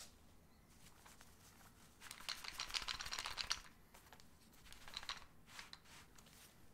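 Small plastic clicks and scraping as an Action Army AAP-01 airsoft pistol is handled in a CTM AAP01 polymer belt holster. There is a dense run of quick clicks and rubbing lasting about a second and a half, starting about two seconds in, then a few fainter clicks.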